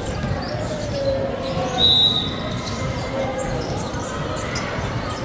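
Basketball game in a gym: a ball dribbling on the hardwood court amid players' voices, with one short, high-pitched squeal about two seconds in.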